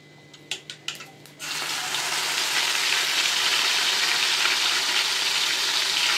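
A few light clicks of a spoon, then about a second and a half in a sudden, steady, loud sizzle as wet ground coriander and green chilli paste hits hot tempering oil in an aluminium kadai.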